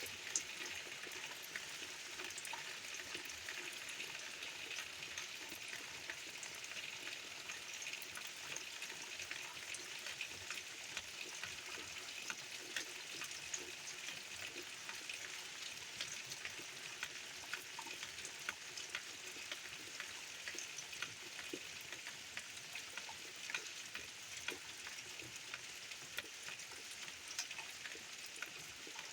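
Steady rain pattering on a tin roof, a dense hiss of many small drop ticks.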